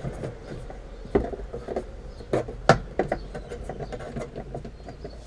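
Irregular clicks and knocks of a caravan cupboard door being taken off its hinges and handled, with a few sharper knocks around the first three seconds over a faint low hum.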